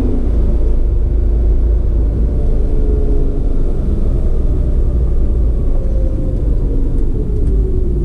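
Vehicle driving steadily along a road: a loud, constant low rumble of wind and road noise with a faint engine drone whose pitch sags slowly near the end.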